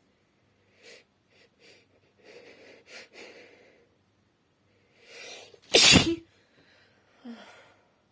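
A woman sneezing once, loudly, about six seconds in, after a series of short sniffs and catching breaths and a drawn-in breath just before it; a brief breath out follows.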